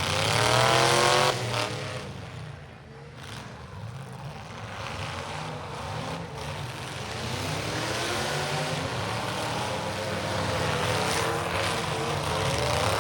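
Demolition derby cars' engines revving, the pitch climbing in the first second and breaking off, then running lower and rising again near the end.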